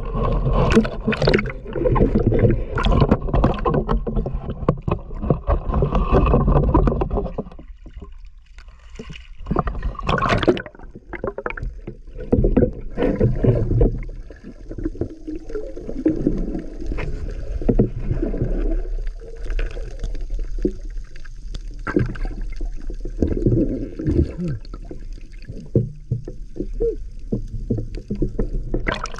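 Sea water sloshing and splashing around a camera moved through the shallows at the surface, loud for the first several seconds. After a brief dip it turns to intermittent muffled surges and rumbles as the camera goes under the water.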